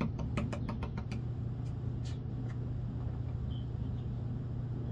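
Plastic gold pan worked in a tub of water, its gravel rattling in a quick run of ticks for about the first second, then a few scattered ticks and splashes. A steady low hum sounds throughout.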